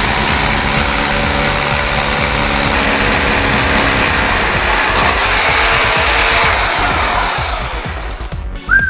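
Corded rotary hammer drill boring a long masonry bit down into a thick concrete floor slab: steady hammering and grinding that tapers off near the end as the drilling stops.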